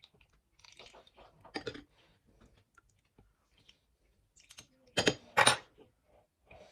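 Kitchen handling noises: scattered light clicks and taps, then two loud sharp knocks about five seconds in.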